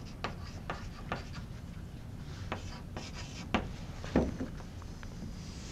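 Chalk writing on a blackboard: a quick run of short taps and scrapes in the first second and a half, then a few scattered strokes, the loudest about four seconds in.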